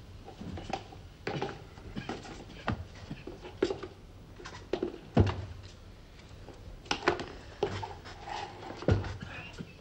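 Irregular knocks and rustles of boots being handled on bare wooden floorboards as a man moves about at the foot of a bed. There are louder thuds about five and nine seconds in.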